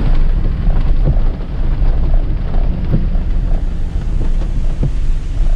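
Low, steady rumble of a truck driving, heard from inside the cab, with wind buffeting the microphone and a few light knocks.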